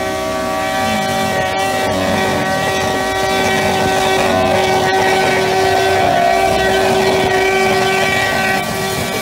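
Motorcycle engine held flat out against its rev limiter, a loud, steady high note that holds one pitch, while the rear tyre spins in a smoking burnout.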